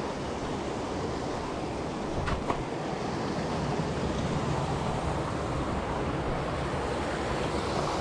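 Canyon stream rushing and splashing over rocks, a steady rush of water, with a couple of sharp knocks a little over two seconds in.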